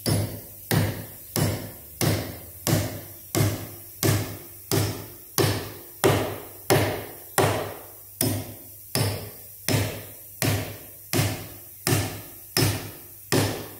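Hammer blows driving a six-inch ring shank pole barn spike into a pre-drilled hole in a solid timber block: about twenty evenly spaced strikes, roughly three every two seconds, each with a short ring.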